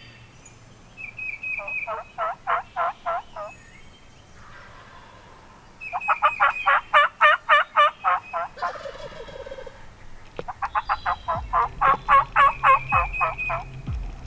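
Wild turkey calling: three runs of yelps, each a string of quick, evenly spaced high notes lasting a couple of seconds.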